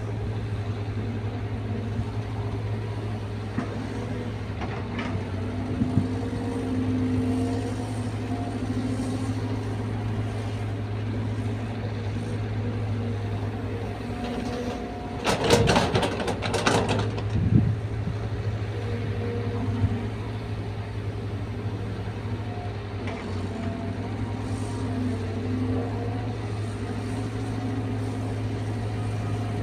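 Caterpillar 320 excavator's diesel engine running steadily. About halfway through, a loud burst of clattering and knocking lasts about two seconds.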